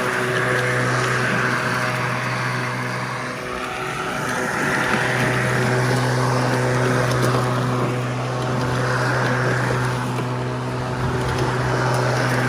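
Sun Joe 48-volt cordless electric walk-behind lawn mower running and cutting grass: a steady motor hum under a whooshing blade noise that swells and fades as it cuts, with a brief dip in the motor about four seconds in.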